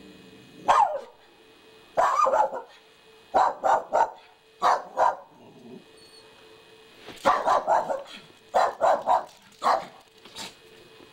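Small dog barking repeatedly, in quick runs of two or three barks with short pauses between them.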